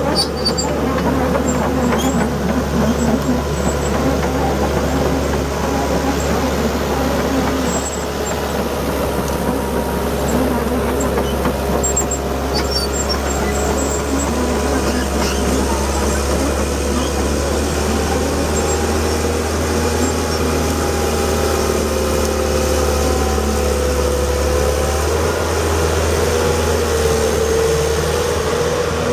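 The John Deere diesel engine of a 1999 John Deere 160LC excavator running steadily, a constant low hum with a fainter whine that slowly wavers in pitch.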